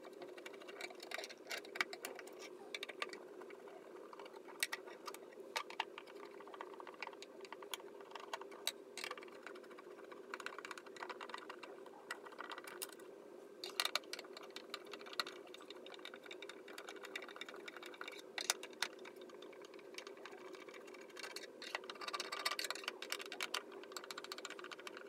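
Fast-forwarded sound of a Phillips screwdriver backing screws out of a plastic battery case: a rapid, irregular run of small clicks and ticks over a steady hum.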